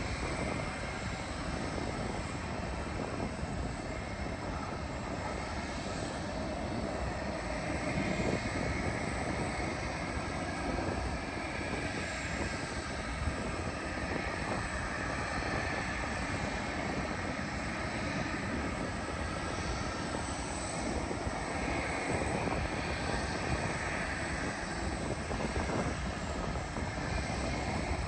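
Jet airliner engines on landing approach: a steady, even rush of engine noise with a faint whine that drifts in pitch through the middle.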